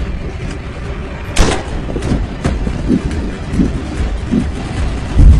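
Film soundtrack with no narration: a low, steady rumble of dramatic score, a single sharp hit about a second and a half in, and a heavy low boom near the end.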